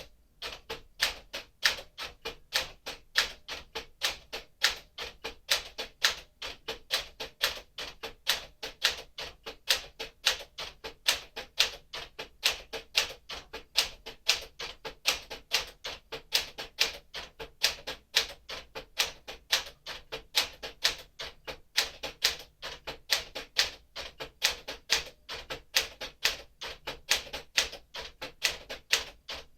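1958 Smith-Corona Clipper manual typewriter typing steadily, about four sharp keystrokes a second, in a character test of its keys.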